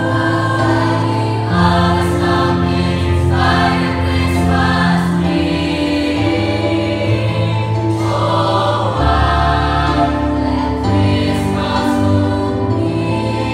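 Mixed-voice choir singing in several-part harmony, holding long sustained chords that change every few seconds.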